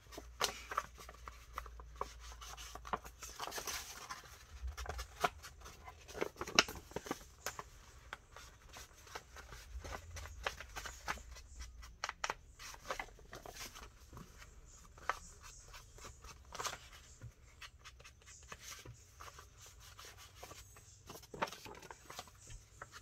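Paper being handled and scraped by hand: an irregular run of short scratches, rubs and small clicks.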